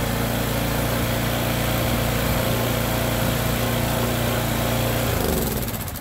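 Toro TimeMaster 30-inch mower engine running steadily after a pull-start, then slowing and stopping about five seconds in.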